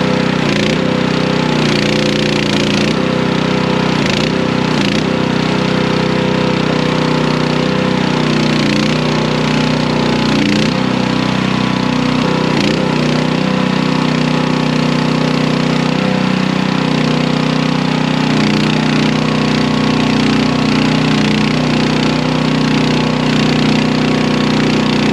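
Skid steer engine running steadily at working revs, its pitch dipping briefly several times, around the first few seconds and again near the middle, as it takes load.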